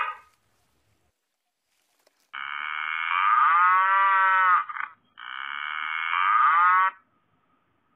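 A cow mooing twice: a long call a couple of seconds in and a shorter one soon after, each rising then falling in pitch.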